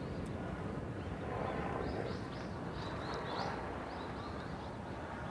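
A bird calling in a run of short high chirps for a couple of seconds, starting about two seconds in, over a steady low outdoor background.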